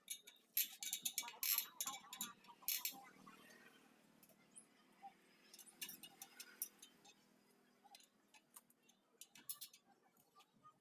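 Metal clicks and clinks from work on a spoked motorcycle wheel, dense and loudest in the first three seconds, then scattered single ticks.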